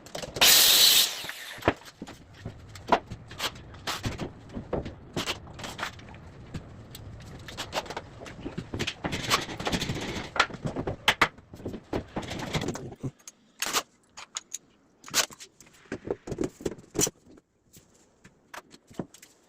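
Scattered sharp knocks and clicks of kitchen cabinet and drawer parts being handled during fitting, with a short loud rushing noise about a second in. A low background noise stops about two-thirds of the way through.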